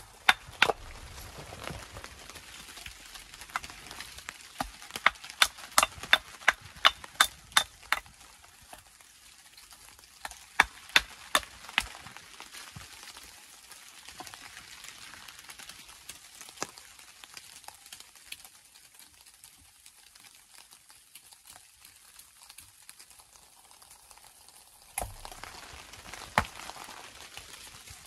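Sharp clacks of strikes on stone during dry stone walling: a quick run of about ten at roughly two a second, a few more a little later, then scattered single knocks and a last bump and clack near the end.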